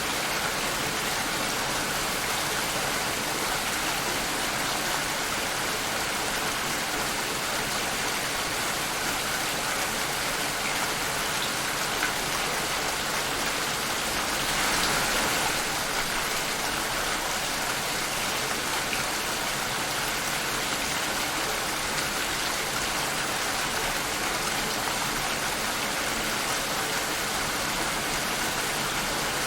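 Steady, even rain falling, with drops pattering on a surface, and a brief swell in intensity about halfway through.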